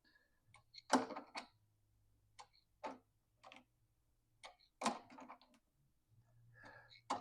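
Scattered light clicks and knocks of a barbed air-hose fitting and its hose clamp being handled and refitted, about ten irregular ticks, the loudest about a second in and again just before five seconds.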